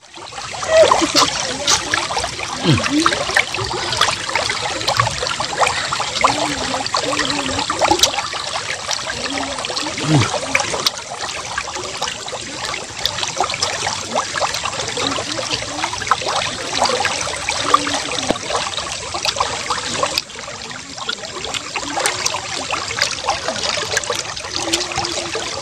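Close-up wet chewing and lip-smacking of tender braised beef eaten by hand, a dense run of small moist clicks.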